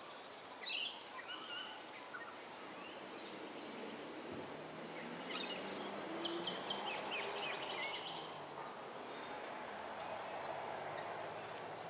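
Willie wagtail calling: several short bursts of high chirping notes with pauses between, over a steady background hiss.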